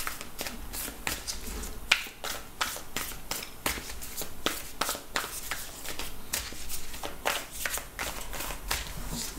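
A deck of tarot cards being shuffled in the hands: an uneven run of soft card slaps and flicks, a few a second.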